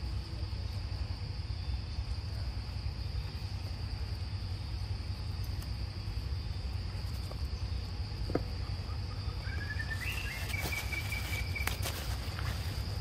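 Steady high-pitched chorus of insects over a low rumble. About ten seconds in a short high call rises and holds for a second or so, followed by a few scattered clicks and rustles.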